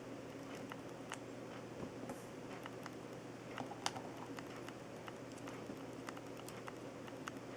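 Faint, scattered clicks and taps of hard plastic model-kit parts being handled and pressed together while the elbow joint of a Gunpla arm is assembled.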